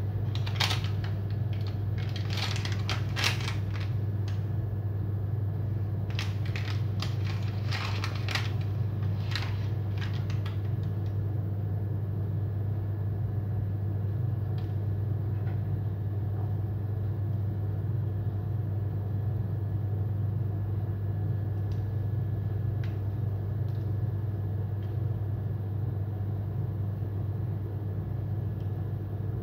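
A steady low hum, as of a running appliance motor or fan. Over it, for about the first ten seconds, comes crackly rustling as soft baked rolls are pulled apart on their baking paper.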